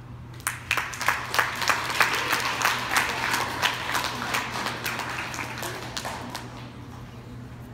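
Audience applauding: dense hand clapping that starts suddenly about half a second in and fades away over the last couple of seconds.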